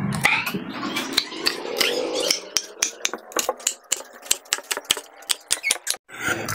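Chef's knife cutting green chillies on a wooden chopping board: a few separate slicing knocks at first, then quicker chopping of about four or five sharp knocks a second.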